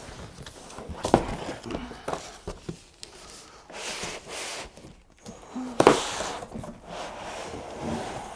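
Cardboard box and white foam packing being handled as a 3D printer is pulled out of its box: rubbing and scraping of foam against cardboard, with several knocks, the loudest about six seconds in.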